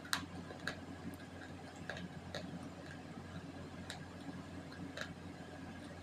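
Slate pencil crunching as it is chewed: sparse, sharp crisp clicks at an irregular pace of about one a second, over a faint steady hum.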